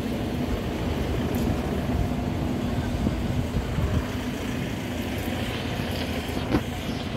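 Scania P410 XT fire engine's straight-six diesel idling steadily at close range, with wind on the microphone and a short knock near the end.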